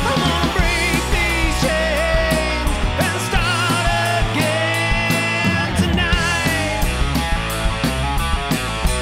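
Background rock music with a steady drum beat and a wavering lead melody.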